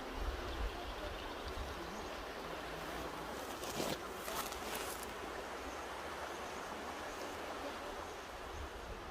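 Mountain river rushing steadily, a constant noise of flowing water, with a brief louder hiss about four seconds in.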